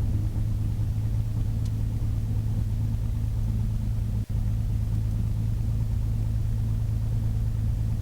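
Beechcraft Bonanza's piston engine and propeller running at low taxi power, a steady low drone. The sound drops out for a moment about four seconds in.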